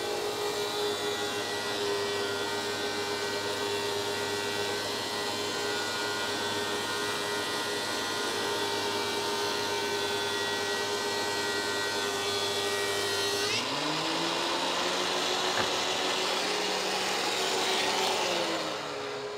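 DeWalt DW735 thickness planer with a Byrd Shelix helical carbide cutterhead planing a board, running without its chip-ejection impeller and with chips drawn off by dust collection. About two-thirds of the way through, the sound changes and a tone rises and holds as the board clears the cutterhead, then falls again near the end.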